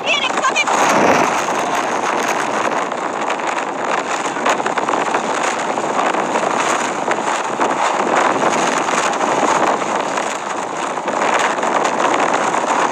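A loud, steady rushing noise that starts abruptly and holds at an even level.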